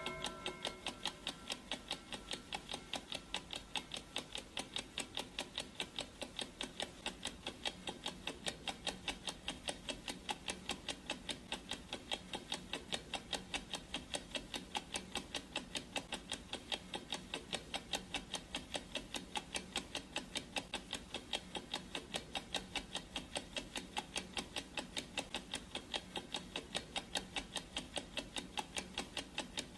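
Clock ticking sound effect: rapid, even ticks that go on steadily. A ringing tone is still fading out in the first second.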